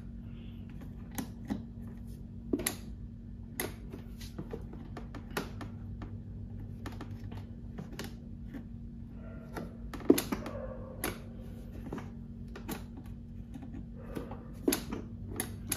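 Irregular light clicks and taps from hands working wires and voltmeter probes on a toy car's circuit board, about one or two a second, the sharpest about ten seconds in, over a faint steady low hum.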